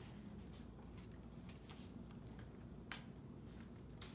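Faint rustling and a few light clicks of plastic and paper packaging being handled as a tracheostomy care kit tray is unwrapped and opened, the sharpest click about three seconds in.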